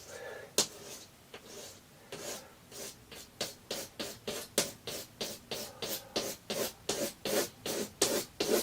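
Razor blade scraping the peeling anti-glare coating off a plasma TV's glass screen in short repeated strokes. The strokes are sparse at first, then quicken to about three or four a second.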